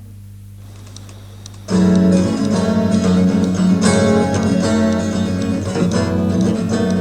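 Unamplified 12-string semi-acoustic guitar, a Baldwin 712, starting to play abruptly less than two seconds in after a moment of low hum, then playing on with many ringing notes.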